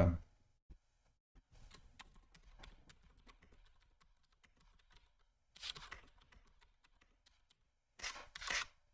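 Typing on a computer keyboard: faint keystrokes in short runs. A brief voiced sound cuts off right at the start, and two short hissy bursts come about two-thirds in and near the end.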